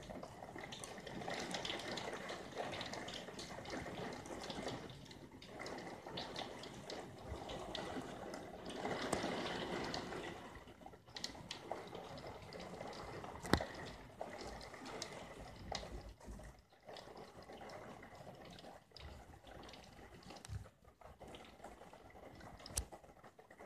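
Steady rain falling, with scattered drops dripping and pattering.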